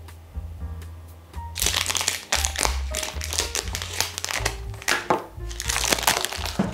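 Thick plastic vacuum-pack wrapping crinkling in loud bursts from about a second and a half in, as it is snipped with kitchen scissors and pulled off a frozen slab of beef short ribs. Background music runs underneath.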